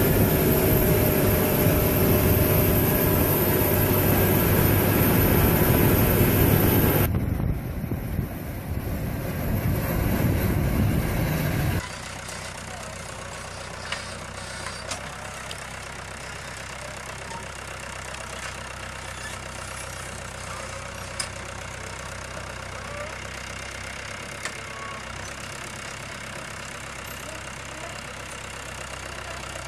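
Farm machinery engines running steadily, with abrupt changes where the footage cuts. A loud steady engine sound with a constant pitch runs for about 7 s, then the sound changes suddenly. About 12 s in it drops to a much quieter steady engine hum with a few sharp clicks.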